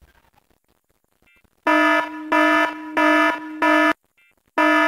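Near silence, then about 1.7 seconds in an electronic alarm starts sounding a harsh pulsing buzz, about two pulses a second. It stops briefly near the end, then starts again.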